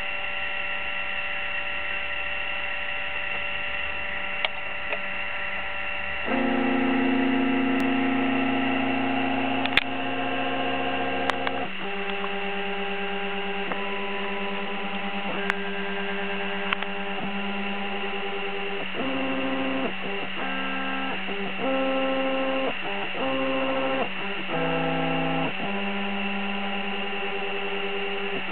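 Stepper motors of a homemade laser cutter whining in steady tones as they drive the work bed, the pitch jumping to a new note whenever the speed changes, with quick changes of note in the second half as the head traces short moves. A steady electrical hum and high whine run underneath, with a few faint clicks.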